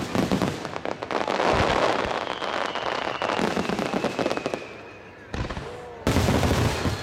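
Starmine fireworks barrage: shells firing and bursting in quick succession, with dense bangs and crackling and a thin whistle sliding slowly down in the middle. The firing thins out about five seconds in, then a loud final volley goes off near the end.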